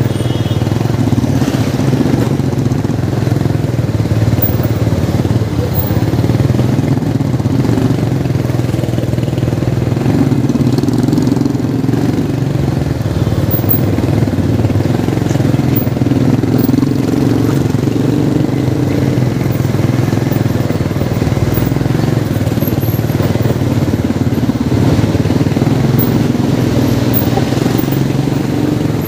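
Motorcycle engine running steadily, its note shifting slightly as the throttle changes.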